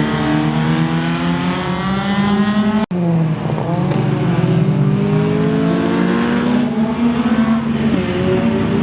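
Rally car engine revving under acceleration, its pitch climbing steadily. The sound breaks off for an instant about three seconds in, then the revs dip and climb again.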